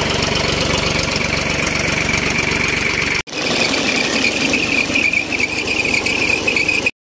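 The engine of a tractor-and-tanker orchard spraying rig running steadily, with a steady high-pitched whine over it. The sound cuts out for an instant about three seconds in and stops near the end.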